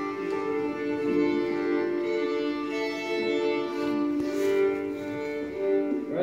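Solo violin bowed in slow, sustained notes.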